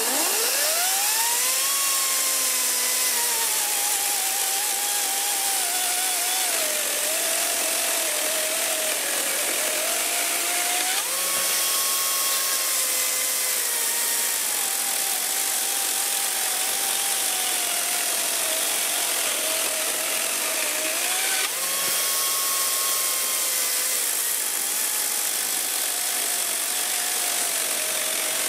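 Brushless cordless electric chainsaw cutting through a wooden beam, its motor whining without a break. The whine climbs to full speed at the start, then sags in pitch as the chain bites into the wood. It jumps back up twice, about a third and two-thirds of the way through, and sags again each time.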